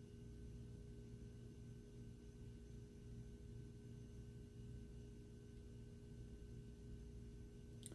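Near silence: a faint, steady electrical hum of room tone, with one small click near the end.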